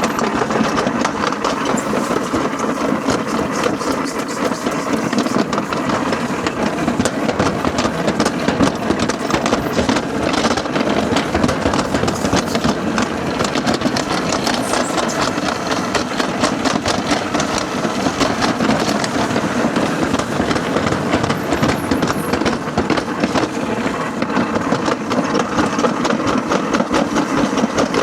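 Toboggan sled rolling fast down a metal slide track, a steady rumble with a dense, rapid clacking of wheels over the track joints.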